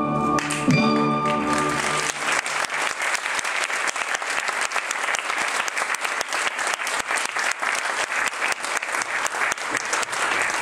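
Orchestral ballet music ends on a held final chord about two seconds in, and an audience then applauds with dense clapping.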